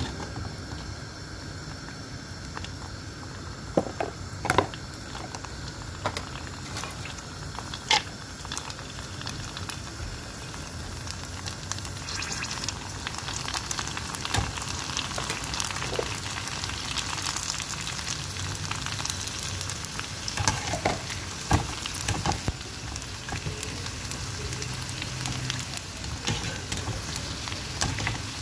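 Fuchka puris deep-frying in hot oil, a steady sizzle that grows fuller and busier about halfway through as the dough rounds puff up. A few sharp clicks stand out along the way.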